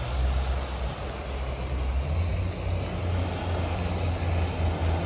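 Small motorboat's engine running as the boat passes on the water: a low drone whose note steps up slightly about two seconds in.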